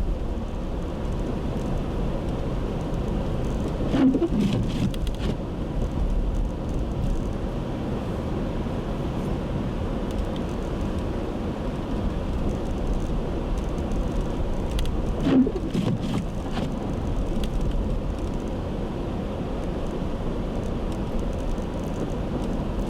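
Steady road noise of a car driving, heard from inside the cabin, with two brief knocks about four and fifteen seconds in.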